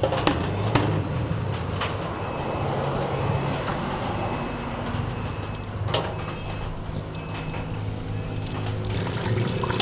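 A steady low mechanical hum like a running engine or motor, with a few sharp clicks: two near the start and one about six seconds in.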